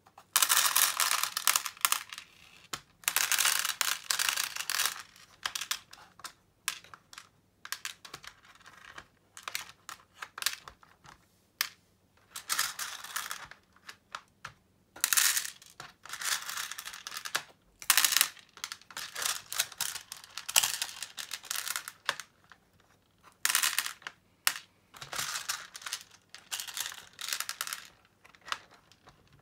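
Plastic beads clicking and rattling against each other and the clear plastic organizer as they are picked up and dropped into its compartments by hand, in bursts of clicks with short pauses between.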